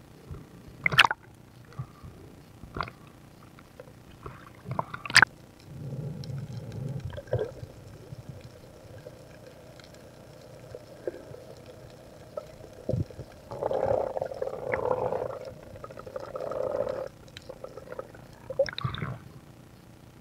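Water sloshing and gurgling around a snorkelling diver at the surface, with a few sharp knocks and a longer stretch of muffled gurgling a little past halfway.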